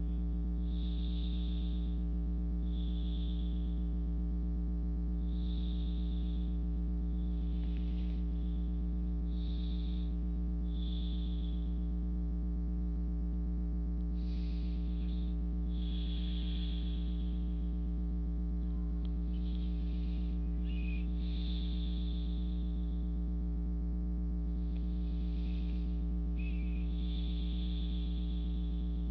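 Steady electrical hum with a stack of even overtones, under soft breathy puffs that come and go every second or two: slow breathing sounds.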